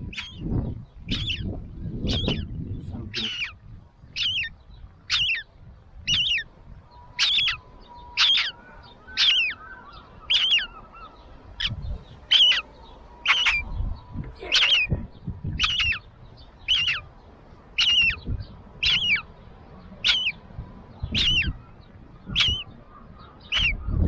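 Seagull chick calling over and over, a short high peep about once a second. Low rumbling noise underlies the first few seconds.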